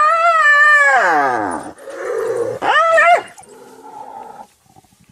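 African wild dogs squealing while squabbling over a kill. A long, high squeal slides steeply down in pitch over about a second and a half, and a shorter call rises and falls about three seconds in.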